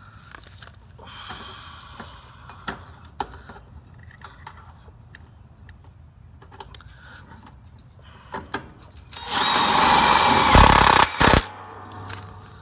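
Power drill driving a screw for about two seconds near the end, with a short second burst right after. Before it there are light clicks and knocks of handling metal parts.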